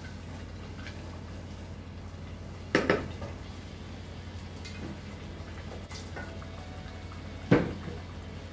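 A spoon knocking against a pot of stew during stirring: a sharp double clank about three seconds in, fainter taps, and another sharp clank near the end, over a steady low hum.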